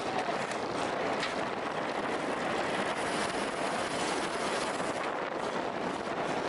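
Steady rush of air and road noise picked up by a camera mounted on a racing bicycle at speed.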